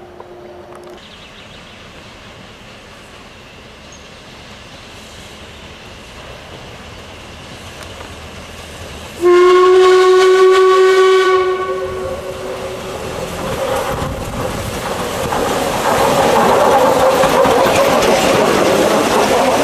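Narrow-gauge steam locomotive 83-180, a 1946 Đuro Đaković standard engine, gives one long steady whistle blast about nine seconds in. The train then comes on and runs past, its running noise growing and loudest near the end as the locomotive passes close.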